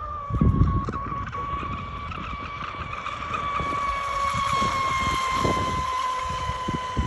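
Pro Boat Sonic Wake 36 RC boat's brushless electric motor whining at speed, a steady high whine that slowly drops in pitch. Low buffeting rumbles of wind on the microphone are heard, strongest about half a second in.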